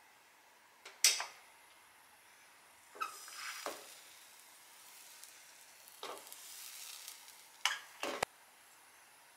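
Thin cocoa crepe batter cooking in a hot non-stick frying pan, giving short, scattered sizzling crackles, with a light knock near the end.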